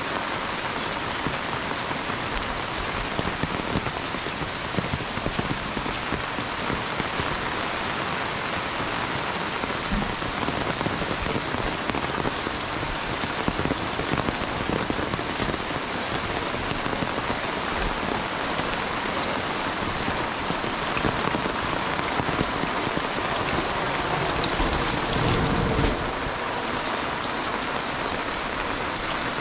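Heavy monsoon rain falling steadily, pattering densely on the umbrella overhead and on the wet ground. Near the end it swells louder for a couple of seconds, then drops back sharply.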